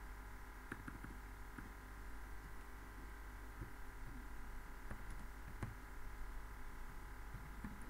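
A few faint, scattered computer keyboard key clicks, spaced irregularly, over a steady electrical hum.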